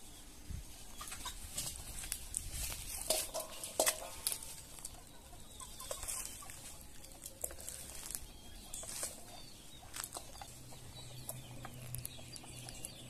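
Chickens clucking now and then, with irregular light clicks of a knife cutting vegetables over a steel bowl.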